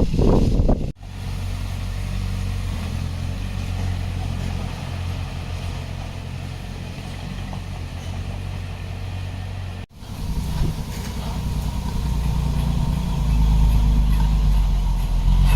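Diesel engine of heavy earthmoving equipment running with a steady low rumble. It breaks off abruptly twice, about a second in and again near ten seconds, and runs louder in the last few seconds.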